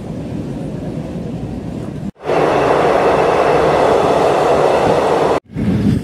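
Passenger train running, heard in three short clips cut together. First comes a low, steady rolling noise, then a louder, steady noise inside the coach for about three seconds, and then the low rolling noise again near the end.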